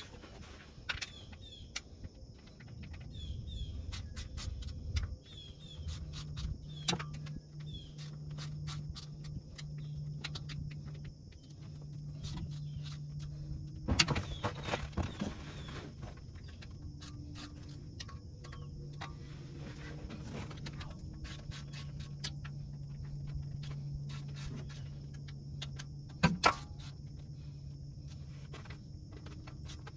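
Scattered clicks and metal clinks of a hand tool loosening the 10 mm transmission pan bolts, with a louder knock about 14 s in and a double knock near the end. Insects chirr steadily, and a low hum comes and goes.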